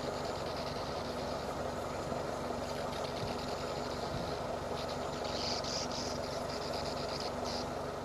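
A vehicle engine idling steadily as a low, even hum, with a few short, high chirps about five seconds in.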